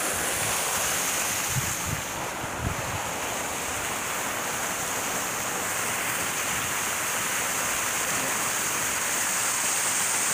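Fountain jet splashing down into its basin close by: a steady, unbroken rush of falling water.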